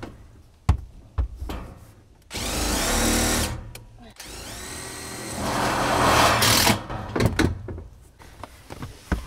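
Cordless drill/driver driving screws through metal siding panels: two runs of the motor, the first about a second long, the second longer and louder towards its end before cutting off, with a couple of sharp knocks before them.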